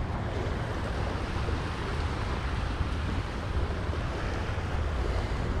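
Steady wind rumbling on the microphone over the wash of surf.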